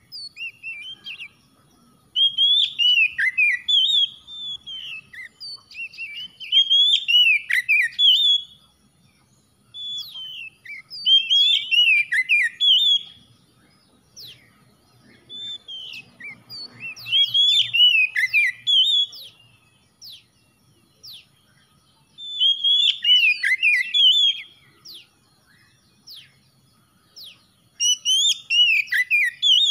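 Oriental magpie-robin singing in repeated bouts of varied loud whistles and quick chattering notes, each bout two to three seconds long with short pauses between.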